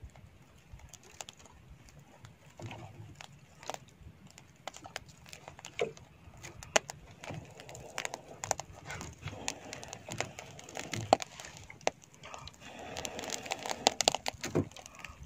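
Small open fire crackling as squid grills over it: irregular sharp pops and clicks over a faint hiss, growing busier near the end.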